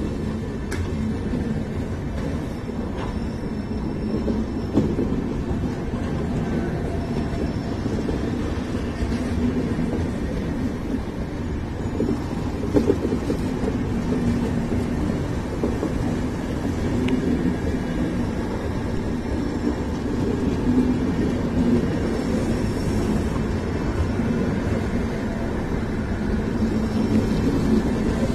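Indian Railways passenger train coaches rolling past, a steady low rumble of wheels on the rails.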